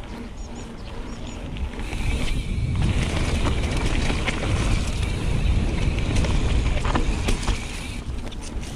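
Santa Cruz Hightower LT mountain bike riding fast downhill: wind buffets the microphone over the tyres rolling on gravel and then on a leaf-covered dirt trail, with frequent sharp knocks and rattles from the bike over bumps. The noise builds over the first two seconds as speed picks up.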